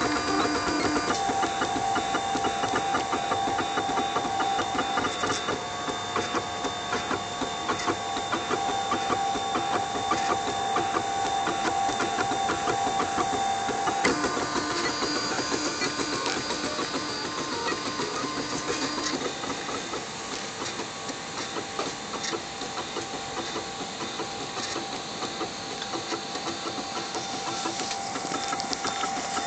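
Wooden-framed Ultimaker 3D printer running a print: its stepper motors whine in several steady tones with fine rapid ticking, the pitch jumping to a new set of tones a second in, again about halfway, and a few seconds after that as the print head changes moves.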